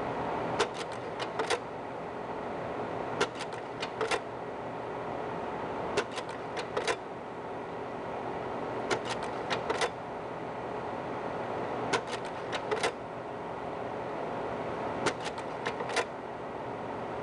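Slide projector running, its cooling fan humming steadily. About every three seconds a quick cluster of four or five sharp clicks sounds as the slide-change mechanism cycles, six times in all.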